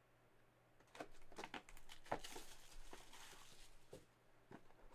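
Faint handling of trading cards and their packaging: scattered small clicks and taps, with a soft papery rustle in the middle.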